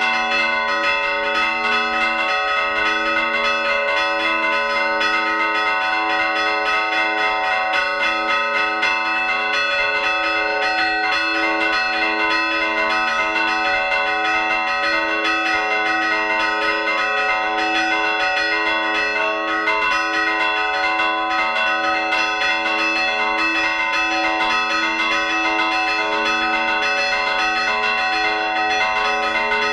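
Bronze church bells chimed by hand from the belfry, their clappers pulled by cords. Several bells ring together in a fast, unbroken peal of strikes, each bell's tone hanging on under the next strikes.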